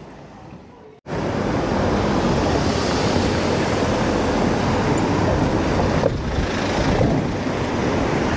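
Quiet street ambience for about a second, then an abrupt cut to a steady, loud rush of road traffic noise, with a car running close by.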